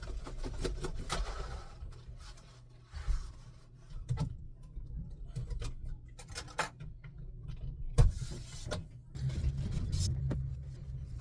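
Class C motorhome moving slowly, a steady low engine and road hum under frequent clicks and rattles from loose things in the cabin, with a louder stretch of hum near the end.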